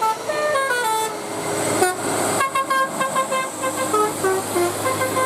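Bus telolet horn (Basuri type) playing a tune of quick, stepped notes. Falling runs come first, then a faster stretch of repeated notes from about two and a half seconds in. A bus engine hums underneath.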